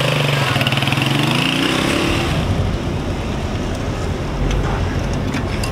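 A motorcycle engine running and revving up as it pulls away, its pitch rising over the first two seconds; then a steady low rumble of engine and road noise from inside a moving car.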